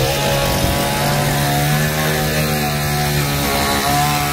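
Two-stroke chainsaw held at high speed after revving up, with a steady engine note that briefly eases about three and a half seconds in.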